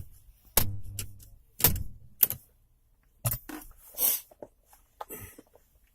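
A run of sharp metallic clicks and knocks at irregular intervals, about seven in all, from tools and key working the jammed ignition lock cylinder of a BMW E60.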